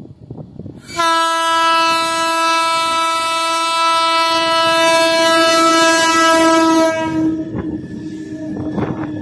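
WAG-12 electric freight locomotive sounding its horn in one long blast of about six seconds, starting about a second in. After the blast the locomotive and its freight wagons rumble past close by, with wheel clatter and knocks from the rails.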